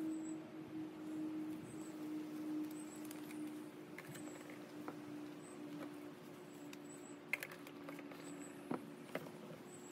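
Soft rustling and scattered light clicks from handling a plastic nursery pot and a plant's root ball, with a few sharper clicks near the end, over a steady low hum.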